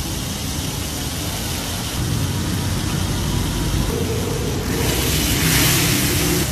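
Steady street traffic rumble and hiss, with a louder hissing rush about five seconds in.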